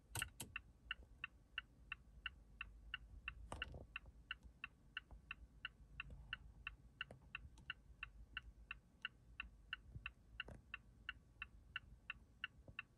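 2022 Mazda CX-9's blinker relay ticking steadily with the hazard lights on, about three ticks a second. A few louder knocks come in among the ticks.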